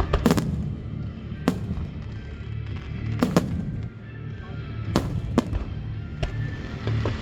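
Aerial fireworks shells bursting, about six sharp bangs at irregular intervals, some in quick pairs, with music playing underneath.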